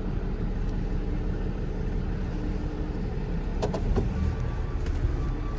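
Tow truck engine running steadily at low speed while the truck is maneuvered into position, with a couple of brief clicks a little under four seconds in.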